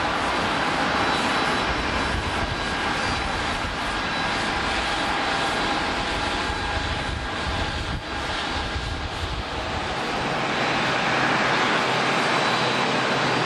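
Airliner engines running steadily, a loud rush of noise with a thin high whine over it. The deepest rumble drops away about ten seconds in.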